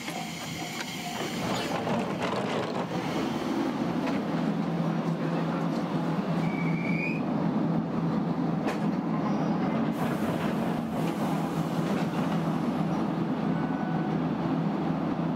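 Choshi Electric Railway train running on the rails, a steady low rumble with a low hum that builds about two seconds in and then holds.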